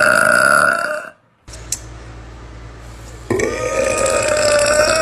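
A woman's long burp, held at a steady pitch, ends about a second in. After a short break, a second long, steady burp begins a little past the middle and is still going at the end.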